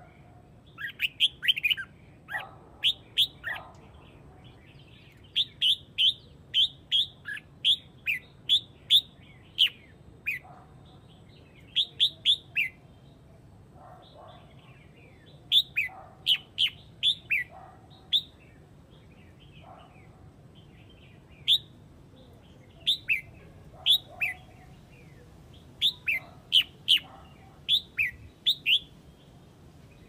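Red-whiskered bulbul giving its flock-gathering call: runs of short, high chirps, each falling in pitch, several in quick succession, with pauses of a few seconds between runs.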